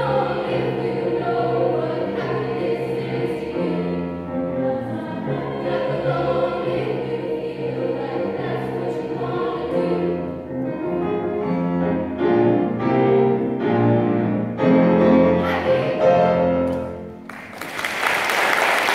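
Women's choir singing in harmony, the closing phrases in short rhythmic chords. Near the end the song stops and the audience breaks into loud applause.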